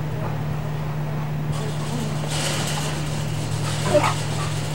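A German shepherd gives one short bark about four seconds in, over a steady low hum.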